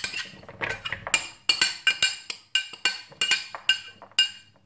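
A glass mixing bowl clinking and ringing as chopped onion is tipped into it from a plastic container: more than a dozen sharp strikes, about three a second, each with the same short ring.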